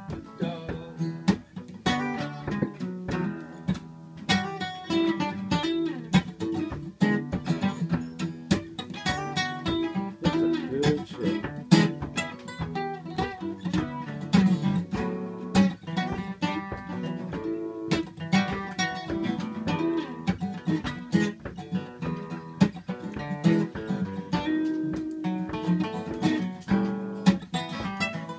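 Acoustic guitar playing an instrumental passage, with strummed chords and picked notes in a steady, busy rhythm.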